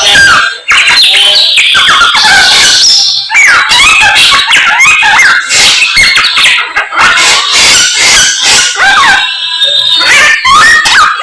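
A songbird singing a loud, fast, continuous song of rising and falling whistled notes mixed with sharp clicking chatter.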